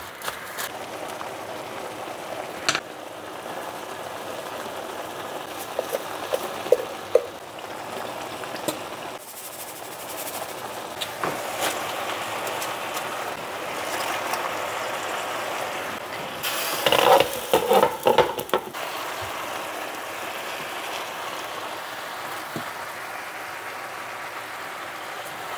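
Spicy stir-fried pork sizzling steadily in a large granite-coated pan. A couple of seconds past the middle, a wooden spatula and fork scrape and clatter against the pan as cabbage and vegetables are tossed in.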